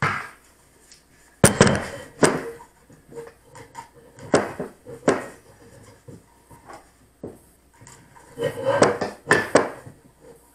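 Hands working on a PVC rocket airframe and its plastic electronics bay: a series of sharp knocks and clicks, with a busier cluster of handling noise near the end.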